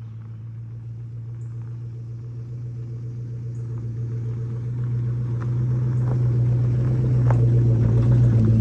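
Chevrolet Silverado pickup towing a utility trailer, its engine humming steadily at low speed on gravel and growing louder as it approaches and passes, with a few scattered sharp ticks.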